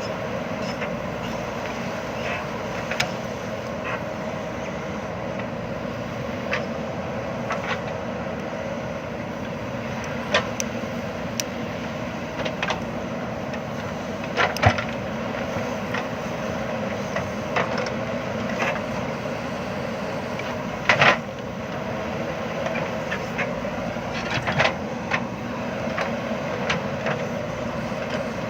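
JCB backhoe loader's diesel engine running steadily under work, with scattered sharp clicks and knocks over it.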